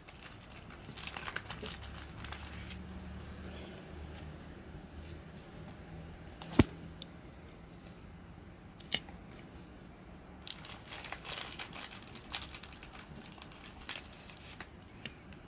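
Rustling and crinkling as shiny Panini Revolution basketball trading cards and their packaging are handled. A sharp tap about six and a half seconds in is the loudest sound, and a smaller one comes near nine seconds.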